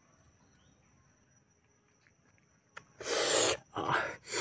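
Near silence, then about three seconds in, three loud, rough bursts of noise close to the microphone, from a man eating a piece of fried pork.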